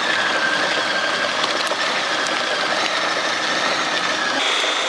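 Electric food processor motor running at a steady pitch, puréeing a dark liquid mixture of cooked vegetables and sauce ingredients. About four seconds in, the pitch jumps higher.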